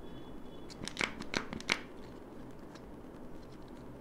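Plastic Kinder Joy eggs clicking and knocking as they are picked up and handled in the hands: three sharp clicks in quick succession about a second in, over faint handling rustle.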